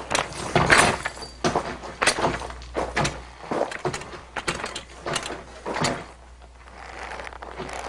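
A run of about a dozen sharp knocks and clacks at uneven intervals, like props being struck and handled for foley sound effects, dying down near the end.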